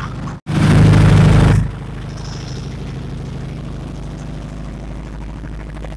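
Boat engine running steadily with a low drone. About half a second in, the sound drops out for a moment and a loud rushing noise follows for about a second, then the engine drone continues.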